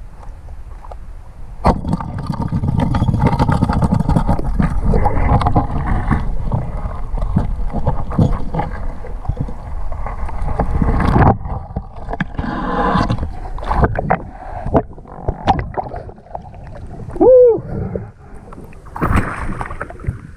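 Water rushing and churning around an underwater camera as a spearfisher swims with a speared snapper, loud and continuous from about two seconds in. It then breaks into scattered knocks and surges, with a short wavering tone about three seconds before the end and splashing as the camera comes up through the surface at the end.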